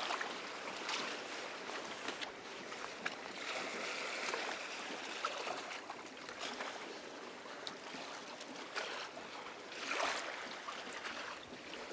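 River water lapping and splashing, with scattered small clicks and a stronger splashy swell about ten seconds in.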